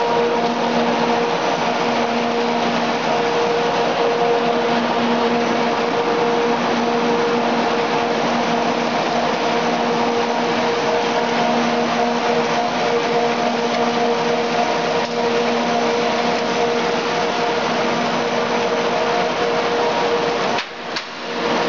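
Machinery of a pet food processing line running steadily: a dense, even mechanical noise with a constant hum over it, dropping out briefly near the end.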